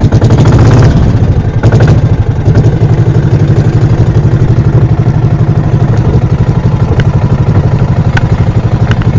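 A motorized outrigger boat's engine catching and then running loud and steady, with a fast, even chugging pulse.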